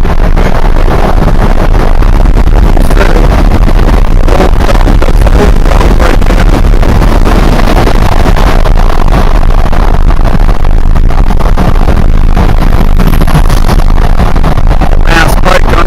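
Vehicle on the move: loud, steady road and wind rumble, with a few sharp knocks near the end.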